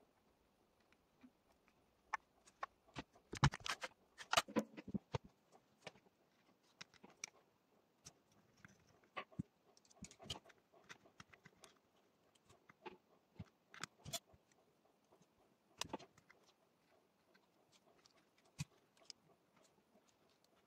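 Faint, scattered clicks and taps of hand tools and small metal parts being handled on a bench, with a flurry of louder clicks about three to five seconds in.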